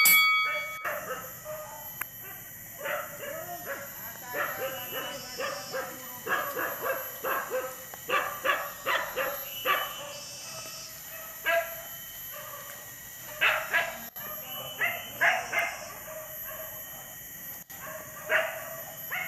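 A pack of hunting dogs barking and yipping in many short, repeated bursts.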